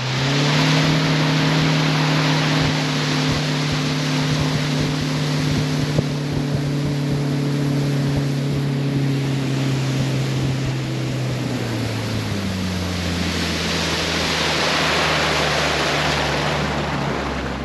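Fishing boat's outboard motor running underway, a steady hum over a rush of wind and water. About 12 seconds in the motor's pitch drops as the boat slows.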